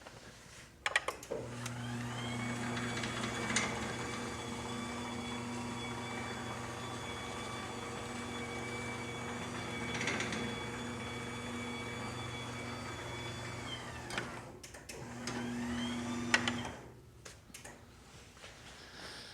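LiftMaster 2220L chain-drive garage door opener with a DC motor running a door cycle. A click, then the motor hums up with a rising whine, runs steadily for about twelve seconds and winds down softly to a stop. After a few clicks it runs again briefly for about a second and a half.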